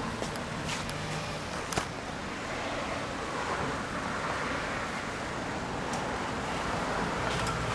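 Road traffic passing on a street: a steady wash of car and van noise, with a single sharp click about two seconds in.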